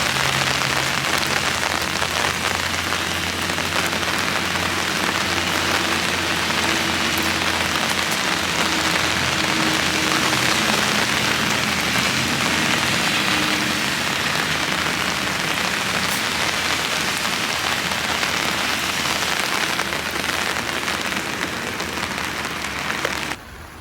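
Heavy rain falling steadily, with a faint low hum underneath; it cuts off abruptly near the end.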